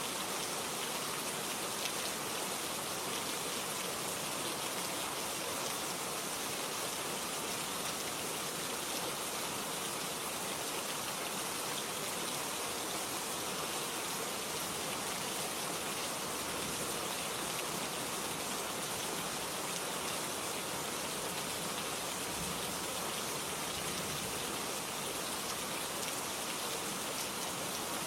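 Steady rain falling, an even hiss of drops without let-up.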